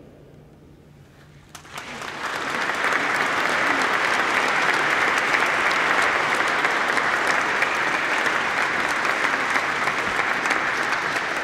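Audience applauding in a church, starting about a second and a half in after a brief hush and quickly building to steady, dense clapping.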